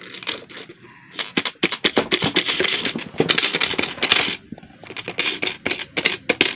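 Hard plastic toy parts clicking and rattling as they are handled and fitted together, a quick run of sharp clicks, a short pause, then more.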